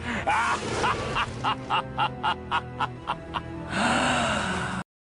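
Short music clip with a steady beat of about four hits a second and brief gliding pitched sounds near the start. About four seconds in, a hissing noise takes over, and then it cuts off suddenly.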